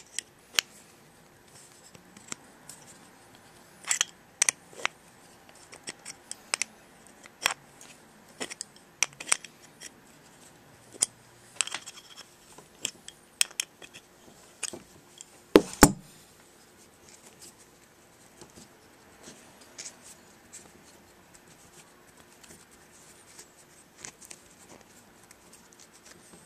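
Small metal clicks, taps and knocks of a two-stroke engine carburetor body and its parts being handled in the fingers. The clicks come irregularly and often through the first half, with the loudest knocks about sixteen seconds in, then only a few faint ticks.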